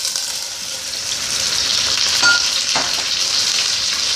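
Raw chicken pieces sizzling as they fry in hot oil with garlic and onion in a stainless steel pot. A spatula knocks and scrapes against the pot a couple of times in the middle as the pieces are stirred.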